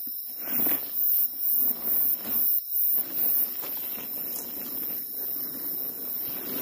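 High-pitched insect chirping in rhythmic pulses, about two or three a second, that becomes a steady trill about three and a half seconds in, over faint rustling.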